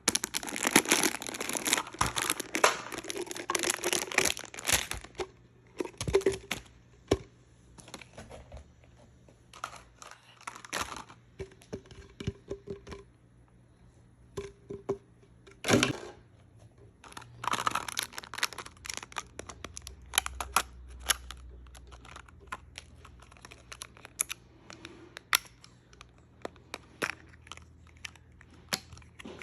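Barbie doll packaging being torn open and crinkled: ripping and rustling, heaviest for the first few seconds and again a little past the middle, with scattered clicks and taps in between.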